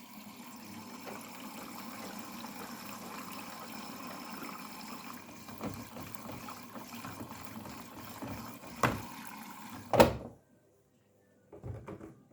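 Water rushing into a Daewoo DWD-FT1013 front-loading washing machine as it fills for a cotton wash. The flow is steady, then a sharp knock just before nine seconds and a louder clunk at about ten seconds, and the water cuts off suddenly. Faint low sounds of the machine return near the end.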